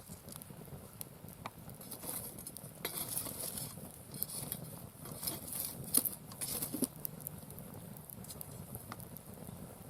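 Mixed broadleaf firewood burning in a campfire, crackling and popping irregularly, with the loudest pop about six seconds in.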